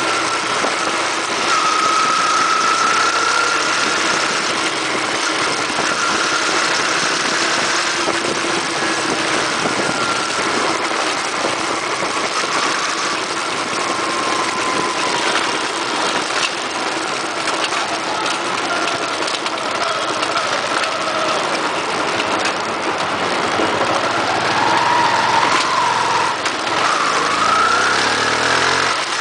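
Yamaha FZ16's single-cylinder engine running at highway speed under a steady rush of wind and road noise.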